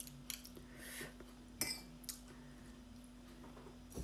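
A metal spoon clinking and scraping lightly against oyster shells as a topping is spooned on: a few scattered soft clinks, the sharpest about a second and a half in, over a faint steady hum.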